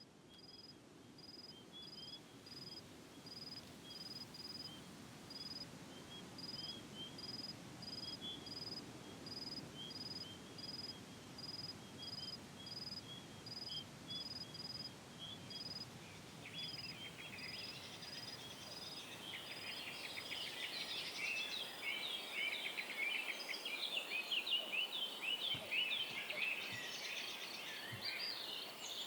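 A single high chirp repeating at an even pace, about three every two seconds, with faint twittering beneath it. From about halfway in, many birds start singing and grow steadily louder, like a dawn chorus.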